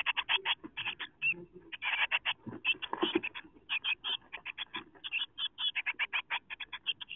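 Blue tit nestlings calling in a rapid run of short, high chirps, several a second, with rustling and scrabbling on the nest material as the chicks jostle, strongest about three seconds in.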